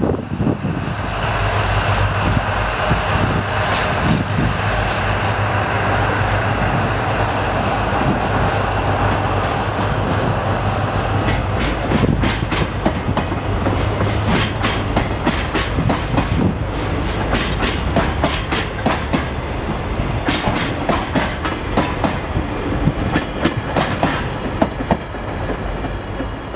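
Diesel-hauled container freight train pulling out and rolling past. The locomotive's engine runs steadily at first, then the container wagons go by with many clicks and clacks of wheels over rail joints, easing slightly near the end.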